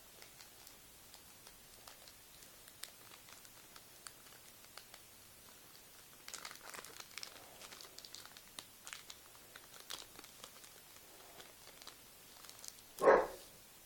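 Faint crinkling and tearing of a Pokémon booster pack's wrapper as it is opened and handled, busiest in the middle. One short, much louder sound comes near the end.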